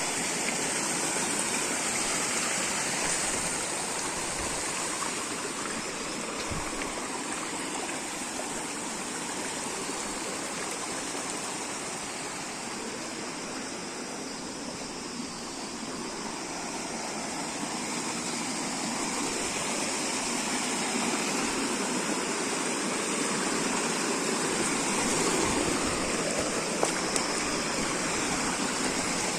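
Fast-flowing water rushing steadily, dipping a little in level midway and swelling again later.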